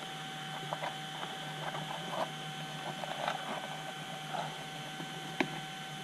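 Wires being pushed through a slot in an EPP foam wing and handled: scattered light rustles and scrapes, with one sharp click about five seconds in, over a steady background hum.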